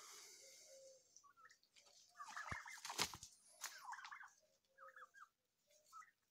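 Turkeys giving short high calls, several in quick succession between about two and four seconds in, with a sharp click about three seconds in.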